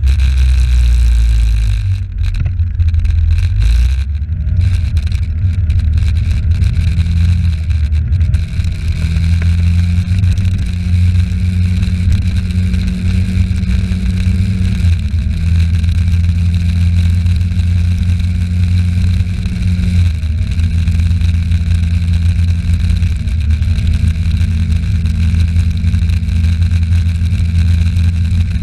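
Small motor scooter engine running on the move, with wind and road noise. About two seconds in the engine note picks up from a low idle-like hum, then holds steady, easing off briefly a couple of times as the throttle is rolled back and reopened.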